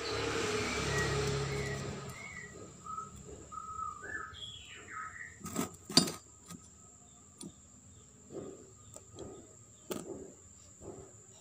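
Small birds chirping in the background, over a rush of noise in the first two seconds. Then the metal end cap and brush holder of a motorcycle starter motor are handled: two sharp metallic clicks around the middle are the loudest sounds, followed by a string of soft taps.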